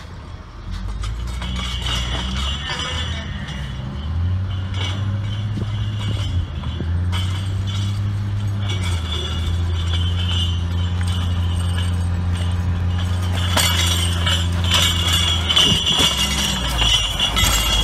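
Log Champ LC550 grapple yarder's diesel engine working under load as it grabs and hauls a log up the skyline, its note stepping up about four seconds in and easing off near the end, with metallic clinking and ringing from the cables and grapple carriage over it.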